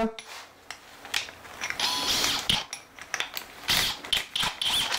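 Ratcheting keyless chuck of a cordless hammer drill being twisted by hand to clamp an auger bit, clicking and rasping in uneven spurts.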